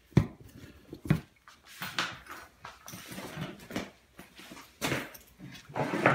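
Sneakers being handled and set down on a glass tabletop: two sharp knocks within the first second or so, then a run of rustling and crinkling from the paper wrapping.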